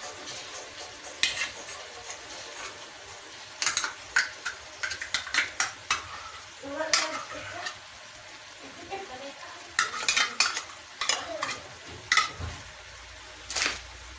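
Kitchen clatter: sharp clicks and clinks of cooking utensils being handled beside a wok, coming in scattered clusters over a faint steady sizzle of ground meat frying.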